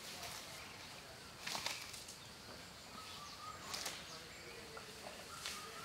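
Asian elephant eating grass: three short rustling crunches, about two seconds apart, as it pulls and chews the stalks.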